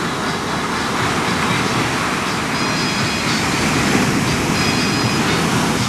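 Steady rushing roar of ocean surf breaking on the shore, swelling slightly about four seconds in.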